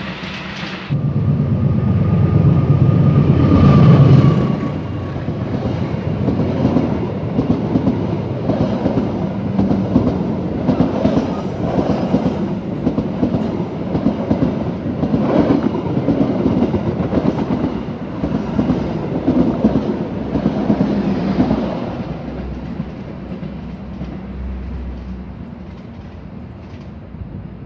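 KAI passenger train passing close by. It starts with a heavy low rumble, loudest about four seconds in, then the wheels clatter over the rail joints in a steady rhythm as the coaches go by. Near the end it fades as the train moves away.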